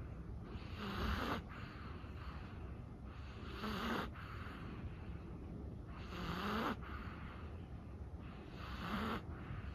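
Chihuahua snoring in its sleep: slow, even breaths about every two and a half seconds, four in all, each with a low snore.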